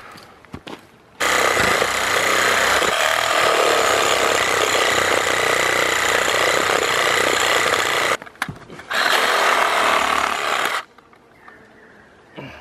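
Cordless reciprocating saw cutting through the ribs of a red deer carcass. It runs for about seven seconds, stops briefly, then cuts again for about two seconds.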